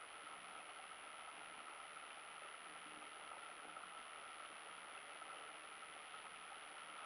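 Faint, steady hiss with a thin high tone over it and no distinct events.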